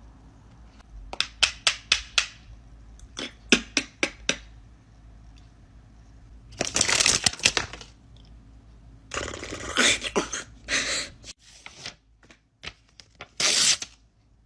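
Mouth-made sound effects: two quick runs of clicks, then several short hissing, spluttering bursts.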